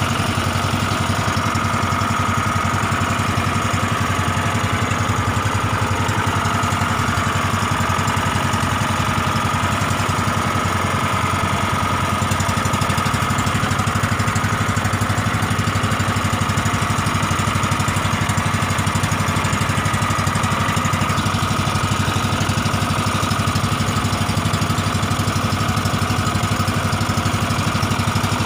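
Small fishing boat's engine running steadily under way, with a fast, even beat that does not change.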